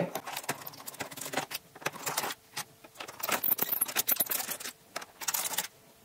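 Small screwdriver backing out the bottom-cover screws of an HP Pavilion Gaming 15 laptop: clusters of light clicks and scrapes with short pauses between them.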